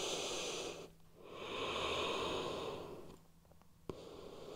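A person's slow, deep breathing during a held yoga forward fold: two long breaths, a short pause, then a sharp click and the start of another breath near the end.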